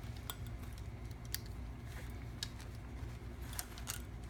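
A few light clicks and handling of small parts as the 9-volt battery is unclipped from the effects pedal and the power adapter is plugged in, over a low steady hum.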